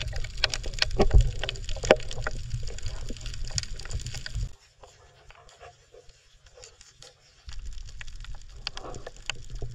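Water sounds picked up by a camera held underwater: scattered sharp clicks and crackles over a low rumble of moving water. The rumble drops out for about three seconds midway, then returns.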